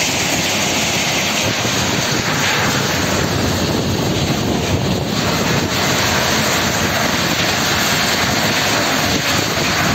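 FABO ME 1645 mobile screening plant running, a steady mechanical noise with its conveyor discharging material.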